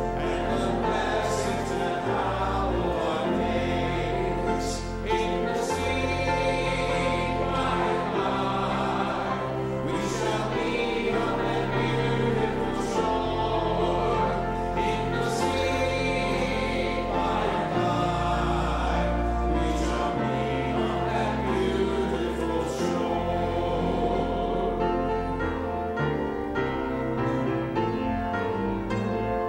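Church worship music: voices singing over instrumental accompaniment with a low bass line and sharp strikes every couple of seconds.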